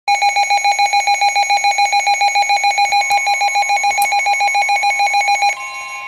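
Midland NOAA weather radio sounding its alert alarm for a flash flood warning: loud, rapid electronic beeping, about seven beeps a second. About five and a half seconds in, it drops to a quieter, steady tone: the weather broadcast's warning alarm tone.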